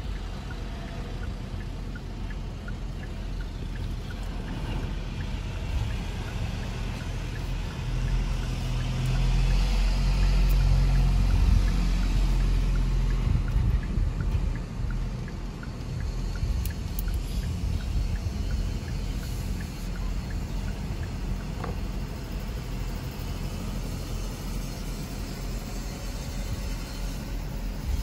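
Car running with a steady low rumble and road-type noise, which swells louder for several seconds about a third of the way in and then settles back.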